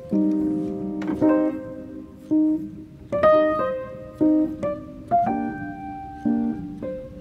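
Background music: a piano playing a slow melody over chords, notes struck about one to two a second.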